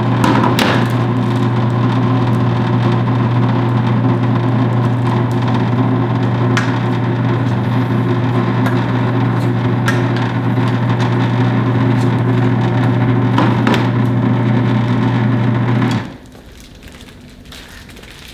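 Cabela's Carnivore 3/4 hp electric meat grinder running steadily as it pushes ground meat through the stuffing tube into a bag: a loud, even motor hum with a few light clicks. The motor cuts off suddenly about 16 seconds in.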